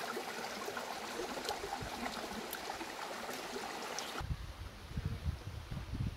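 Shallow rocky stream flowing, a steady rush of water over stones. About four seconds in the water sound cuts off abruptly, replaced by irregular low rumbling bumps on the microphone.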